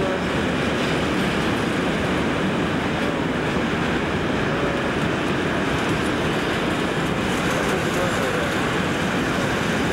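Freight train of tank wagons running past, a steady noise of wheels on the rails.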